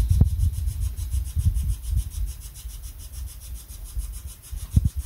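Wind buffeting the microphone: an uneven, gusty low rumble, with a couple of brief bumps.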